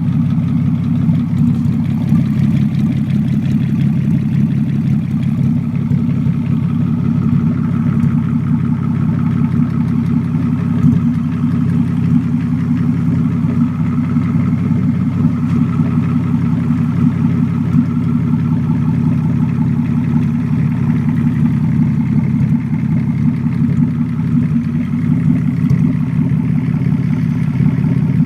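Opel X30XE 3.0-litre V6 engine running at a steady speed, making sounds its owner finds strange.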